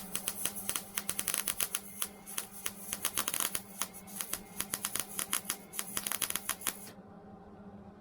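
Hobart Handler 140 wire-feed welder's arc crackling in a fast, irregular sputter while laying a fill weld, cutting off about seven seconds in. A steady low hum runs underneath.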